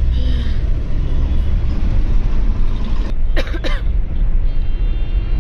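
Steady low rumble of a car's engine and tyres, heard from inside the cabin while driving. A brief, sharper sound comes a little past three seconds in.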